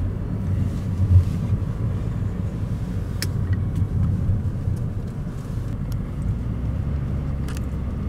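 Car driving on a winding road, heard from inside the cabin: a steady low rumble of engine and tyres, with a brief low thump about a second in.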